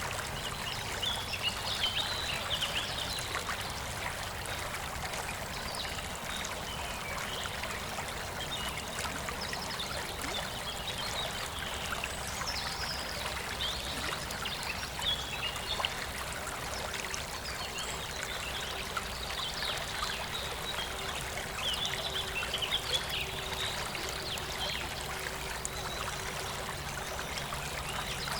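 A stream of running water trickling and pouring steadily, with small birds chirping now and then over it.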